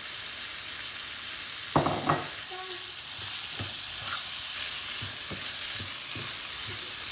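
Daal mash frying in oil in a pan with a steady sizzle while being stirred: the spoon knocks loudly against the pan twice about two seconds in, then gives lighter knocks every second or so. This is the bhuna stage, the dal and masala being fried dry before water goes in.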